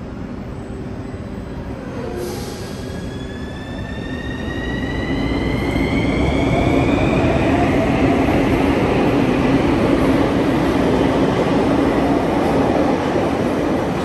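CAF metro train accelerating: its traction motors give a whine that rises in pitch from about two seconds in, and the running rumble of the train grows louder and then holds steady.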